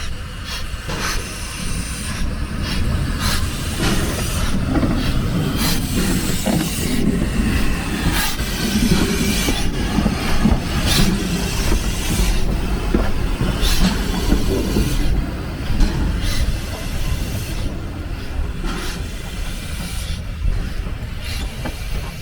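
A heritage train running on the rails: a steady low rumble with irregular clacks and knocks from the wheels and carriages.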